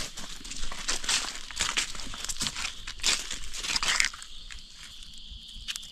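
Dry forest leaf litter crunching and rustling in quick, irregular crackles, dying down about four seconds in.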